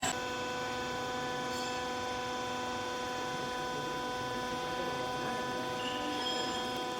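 Textile fibre baler machine running with a steady, even hum.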